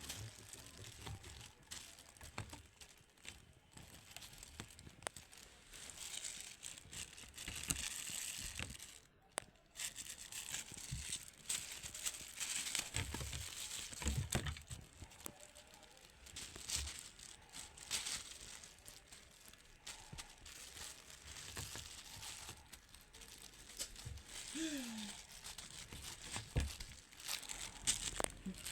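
Crinkling and rustling, with scattered taps and clicks at irregular moments, as something crinkly is scrunched and batted about during play with a cat.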